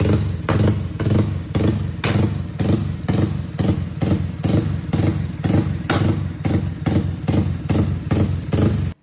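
Honda RS150R motorcycle, its single-cylinder engine bored out to about 163 cc, revved hard on the stand through an aftermarket exhaust in quick repeated blips, about two a second.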